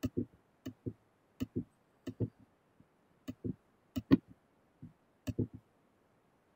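A steady rhythm of paired soft knocks, one pair about every two-thirds of a second, each pair a quick double knock.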